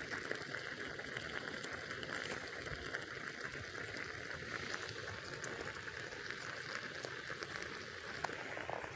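Aluminium stovetop moka pots on a campfire hissing and bubbling steadily as the coffee boils, with fine crackles throughout.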